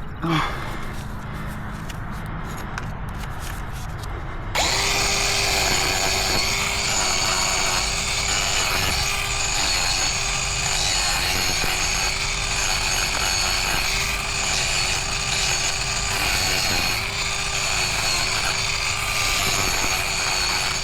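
Mini angle grinder switched on about four seconds in and running steadily as it grinds down a miniature horse's overgrown hoof, its pitch wavering slightly and regularly as it is worked across the hoof.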